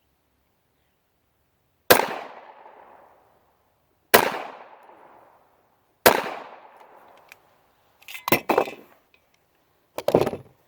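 Three 9mm gunshots about two seconds apart, each dying away with a trailing echo, followed near the end by two short clusters of sharp metallic clicks and clacks.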